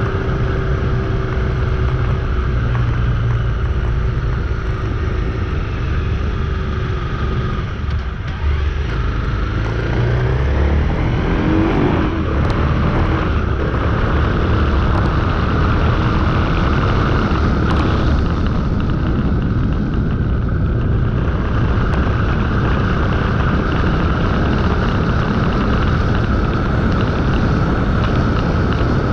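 Motorcycle riding at a steady pace, its engine running over wind and road rumble; about eight seconds in it eases off briefly, then picks up again with a rising engine note.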